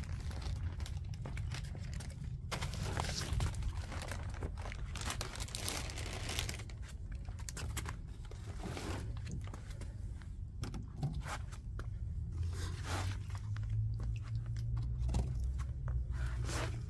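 Footsteps crunching on loose landscaping rocks, an irregular run of crunches.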